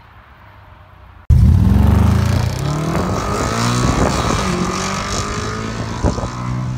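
Audi RS4 B8's 4.2-litre V8 on a straight-pipe exhaust with the flap open, bursting in loud about a second in as the car accelerates hard past and away, the exhaust note climbing in pitch through several upshifts and slowly fading. A couple of sharp exhaust cracks come near the end.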